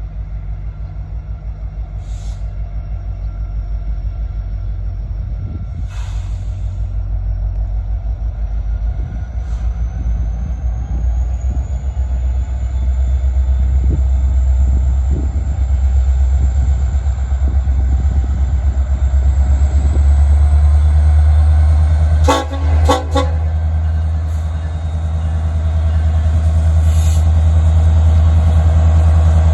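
Large engine running with a steady low drone that grows louder, under a faint high whine that slowly rises in pitch. About 22 seconds in, a horn gives three short toots in quick succession.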